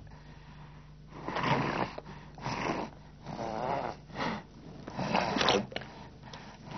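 An elderly woman with a tracheostomy speaking short, broken phrases ("I cannot smell flowers... nothing") after a quieter first second. Her voice is made through a tracheostomy.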